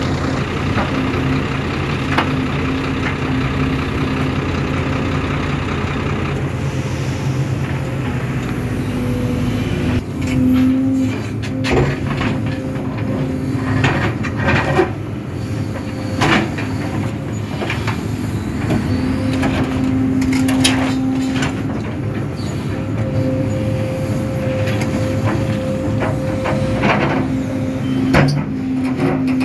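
Sumitomo SH-300 excavator's diesel engine and hydraulics running under load, with a humming tone that comes and goes as the boom and bucket work. From about ten seconds in, the steel bucket knocks and scrapes repeatedly as it digs into stony soil.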